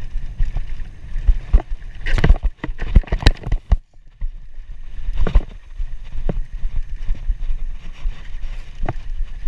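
Scott Scale 960 hardtail mountain bike ridden fast over a dirt track: steady wind rumble on the microphone with the rattle and knocks of the bike over bumps, a dense cluster of sharp knocks about two to three and a half seconds in and a brief lull just before four seconds.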